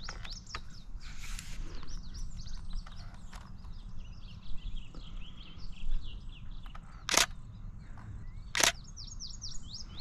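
Wild songbirds chirping in quick runs of high, sliding notes that repeat throughout. Two brief, loud bursts of noise come about a second and a half apart near the end.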